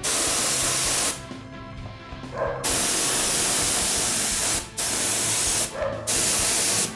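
Small air-fed paint spray gun hissing in four bursts as the trigger is pulled and released, the longest about two seconds, atomising paint onto a model.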